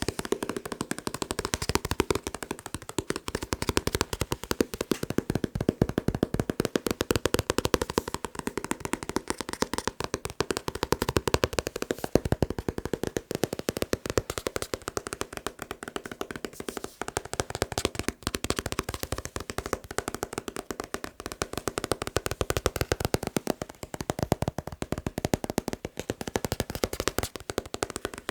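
Fast, continuous tapping on a manga book, a rapid run of light taps on its paper cover and pages that hardly pauses.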